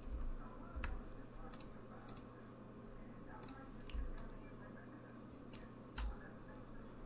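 Irregular clicks from a computer keyboard and mouse, a sharp click every second or so.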